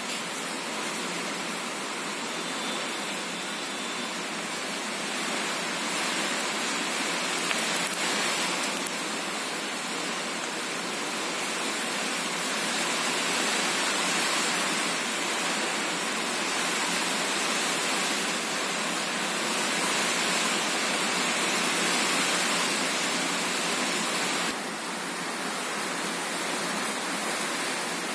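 Steady hissing, rushing background noise, dropping slightly in level near the end; the clay handling itself is not heard above it.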